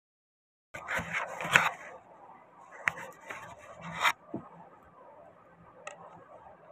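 Hands handling rubber casting molds in plastic card frames: rubbing and scraping with a few sharp clicks. About four seconds in it gives way to quieter scraping of a stick stirring resin in a small plastic cup.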